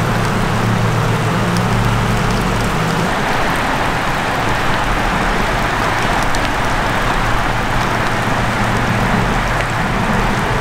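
Steady rush of running stream water and falling rain, with scattered faint drip ticks and a low hum underneath.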